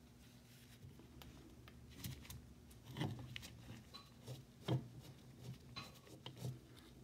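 Screwdriver loosening the rusty frog screws on an old Shelton cast-iron hand plane: faint scraping with a few sharp metal clicks and knocks, the loudest about two-thirds of the way in.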